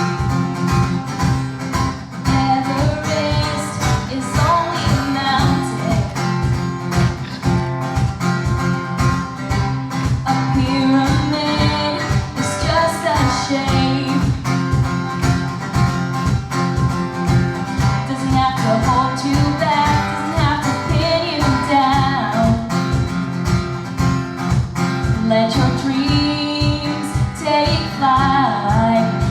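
A song: singing over guitar with a steady beat.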